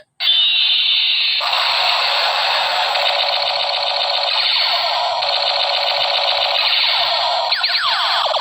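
Electronic sound effect from a battery-powered toy gun's small speaker: a falling zap, then a continuous warbling electronic tone, with quick sweeping chirps repeating near the end.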